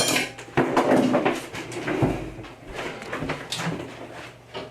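Kitchen clatter: a series of sharp knocks and rattles as things are handled, the loudest just after the start and around a second in.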